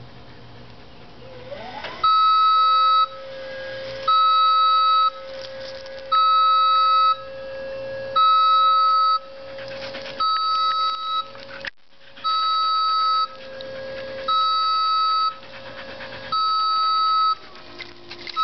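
Man-lift's motion alarm beeping: a high electronic beep about a second long, repeating every two seconds from about two seconds in. Underneath, a dog howls along in a long held note that rises at the start and wavers near the end.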